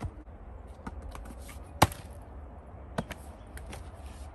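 Axe chopping firewood: three sharp strikes into the wood about a second or more apart, the second the loudest, with lighter knocks between them.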